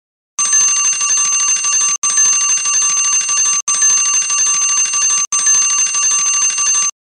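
Online countdown timer's alarm going off as it reaches zero: a bell-like electronic ringing, repeated four times in loops of about a second and a half with tiny breaks between them.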